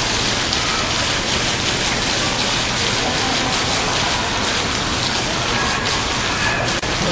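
Water fountain splashing steadily: a dense, even rush of falling water.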